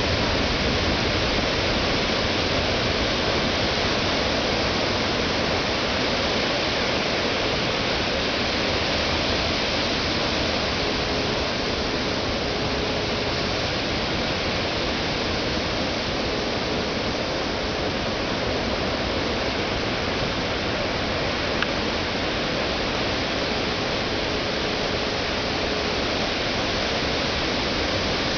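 Ocean surf breaking on a sandy beach: a steady, even roar of waves.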